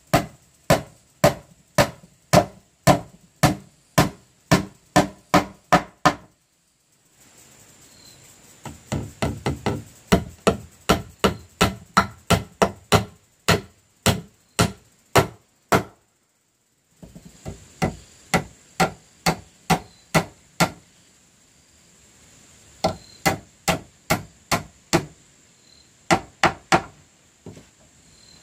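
Hammer driving nails into old wooden planks: sharp, steady blows at about three a second, in runs broken by short pauses.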